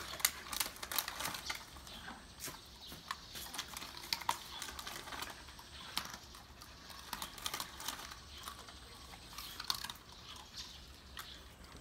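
Dogs being hand-fed treats and chewing them: scattered, irregular small clicks and crunches.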